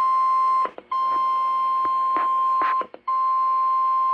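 Emergency alert tone on a radio broadcast: a loud, steady single tone near 1 kHz sounding in long beeps of about two seconds, with two short breaks, announcing a National Weather Service severe thunderstorm warning. A faint hiss swells briefly in the middle.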